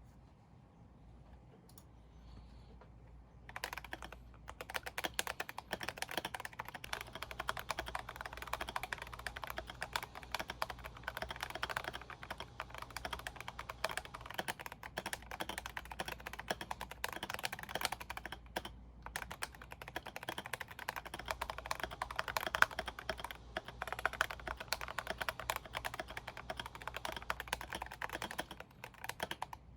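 Continuous typing on a GMMK Pro mechanical keyboard with Gazzew Boba U4T tactile switches, fast irregular keystrokes starting a few seconds in, with a brief pause about two-thirds of the way through.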